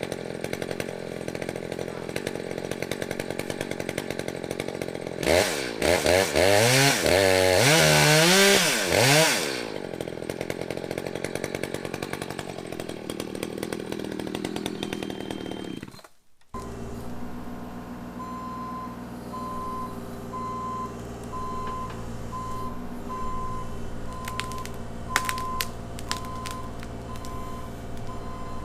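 Two-stroke chainsaw running, revved up hard for about four seconds midway and then dropping back. It stops abruptly, and then a different engine runs steadily while an electronic beep repeats about once a second.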